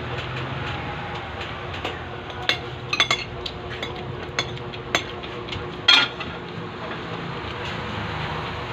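Dishes clinking and knocking as plates and bowls are handled while rice is served onto a plate: a dozen or so short clinks, the loudest clatter about six seconds in, over a steady background hum.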